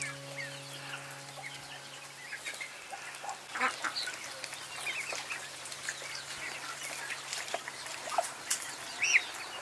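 Domestic ducks calling in short, soft notes, some rising and falling in pitch. A held music chord fades out over the first two seconds.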